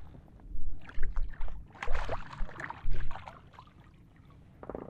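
Water splashing and slapping around a small inflatable boat in irregular bursts, over a steady low rumble of wind on the microphone.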